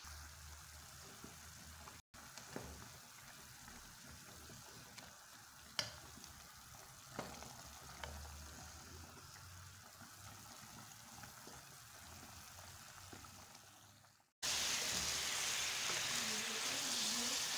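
Faint bubbling of chicken boiling in a pot of water, with a few light clicks. After a sudden cut about 14 seconds in, it becomes a much louder steady sizzle as the chicken cooks in the pot, its water mostly boiled off, and is stirred with a wooden spoon.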